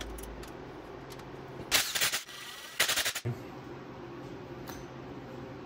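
Cordless impact driver hammering in two short bursts about a second apart, loosening the rocker shaft pedestal nuts on a cylinder head.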